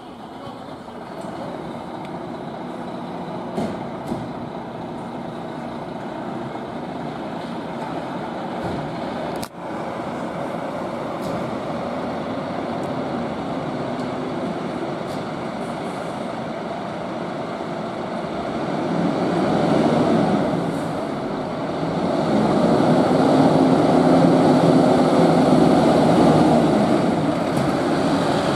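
Diesel engines of fire engines running in the station bays, getting louder about two-thirds of the way through as the first Scania pump revs up and pulls out.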